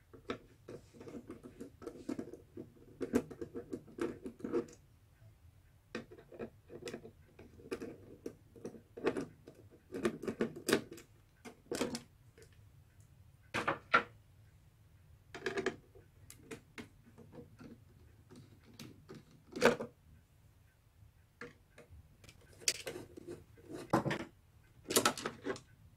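Screwdriver clicking and scraping in the screws of a Panasonic AU-520 MII portable VTR's top cover panel, then the panel knocking and clattering as it is lifted off. The sound is an irregular run of small clicks, with a few sharper knocks in the second half.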